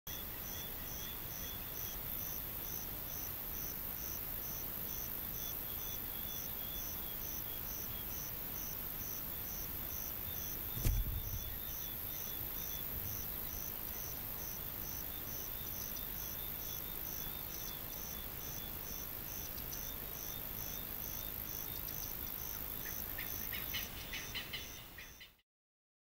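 Field ambience of insects chirping steadily, a high pulse repeating about twice a second over a constant high-pitched hiss. There is a single low thump about eleven seconds in, and the sound fades out just before the end.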